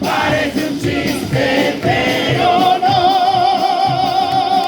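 Chirigota group singing the cuplé's refrain in chorus over a steady drum beat. About halfway through they settle on one long held note with vibrato.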